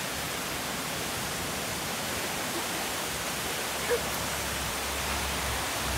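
Steady rush of water from a rock waterfall spilling into a shallow fountain pool, with a low rumble joining it past the midpoint.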